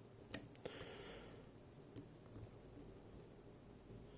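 Faint, scattered clicks of a lever-lock pick working the levers inside a Fichet 484 lever lock, four small clicks with a brief soft scrape about a second in.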